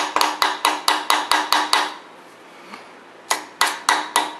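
Hammer tapping the crankshaft key down into its keyway on the nose of a Studebaker 289 V8 crankshaft, light quick metal-on-metal taps with a short ring, about four a second. The tapping stops for about a second and a half midway, then resumes.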